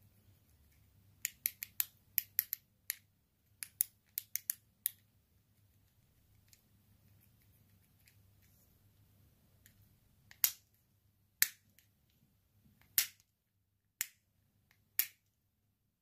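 Plastic buttons on a Fidget Pad controller fidget toy clicking under the fingers: a quick run of about a dozen clicks, then after a pause five louder single clicks about a second apart.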